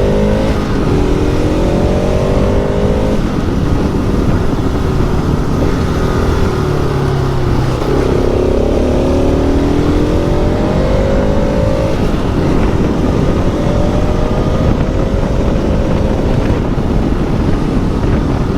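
Motorcycle engine pulling under acceleration, its pitch climbing and then dropping back at each upshift, over a steady low rumble.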